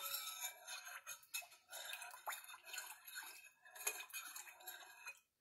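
A utensil stirring a warm liquid gelatin mixture in a glass mixing bowl: faint, irregular clinks and scrapes against the glass.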